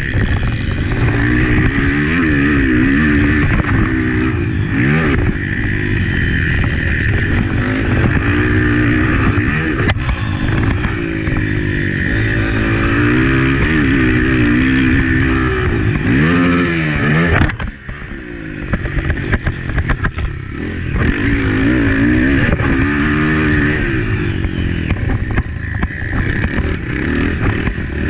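Honda CRF250F four-stroke single-cylinder dirt bike engine ridden hard, its pitch rising and falling again and again as the throttle opens and shuts through the gears. About two-thirds of the way through the throttle shuts briefly and the engine drops away, then picks up again.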